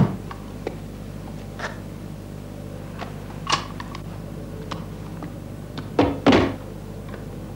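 Sparse knocks and clicks of a combat helmet and gear being handled, over a steady low hum, with a louder double thud about six seconds in.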